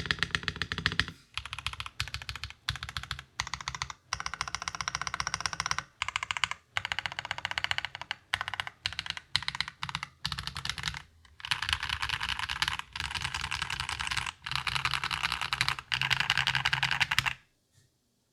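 Fast typing on a modded 65% mechanical keyboard with lubed Akko CS Rose Red linear switches in a flexy top-mounted POM plate with plate foam, and PBT keycaps. Quick runs of keystrokes come with short pauses between them, and the typing stops shortly before the end.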